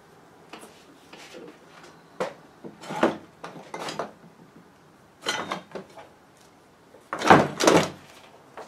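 Scattered knocks and clanks of metal being handled at a workbench, the loudest a pair of knocks about seven seconds in.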